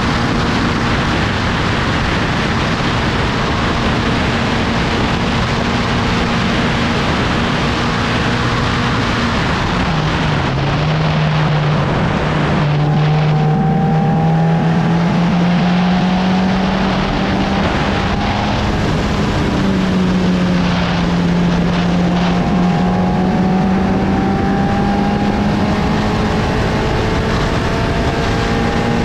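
750 Formula racing car's engine heard onboard under heavy wind rush: it holds steady revs, drops sharply about ten seconds in, then rises gradually as the car accelerates, with a brief dip partway through before it climbs again.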